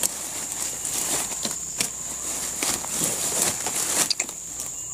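Leaves rustling and twigs crackling in irregular clicks as branches are pulled and cleared with a machete, over a steady high-pitched insect drone.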